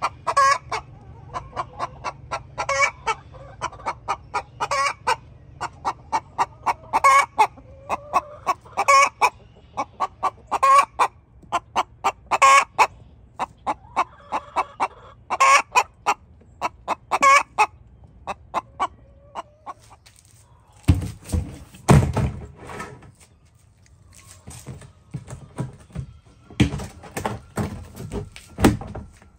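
Chickens clucking steadily, with a loud cackle breaking out about every two seconds. The calls stop about two-thirds of the way through, and a grey plastic storage tote is handled with a few clusters of knocks and scrapes.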